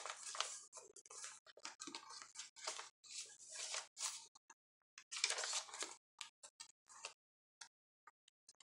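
Paper rustling and pages turning by hand in a handmade junk journal. Dense rustling for about four seconds, another burst about five seconds in, then a few brief flicks and taps near the end.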